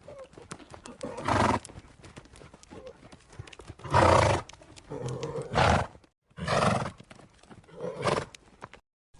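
Horse giving five short, noisy vocal bursts, with light clicking between them.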